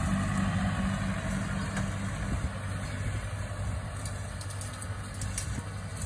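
Farm tractor's diesel engine running steadily as it pulls a rotary hay rake rowing up cut grass, slowly growing fainter.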